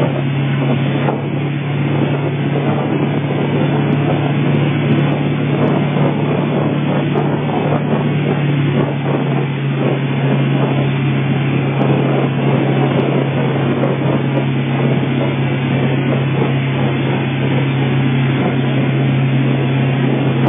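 Tow boat's engine running steadily at towing speed, a constant low drone, over the rushing water of its wake.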